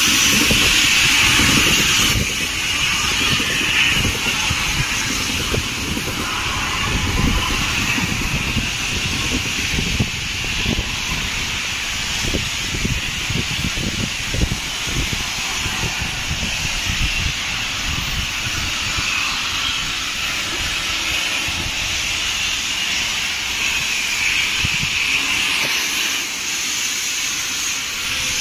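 Steady loud hiss of steam escaping from the LNER A3 Pacific steam locomotive Flying Scotsman. For the first couple of seconds the hiss is louder, with a modern passenger train running past close by.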